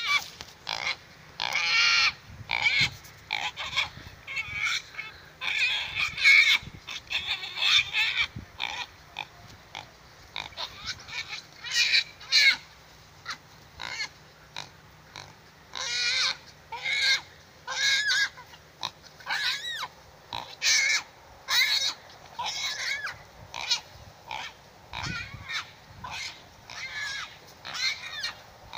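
Small pig squealing in distress as dogs bite and pin it. Shrill squeals come again and again in short bursts, some drawn out.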